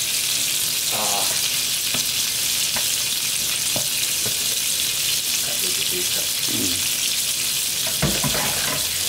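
Beef frying in butter in a pan: a steady sizzle, with a few sharp clicks as it is stirred.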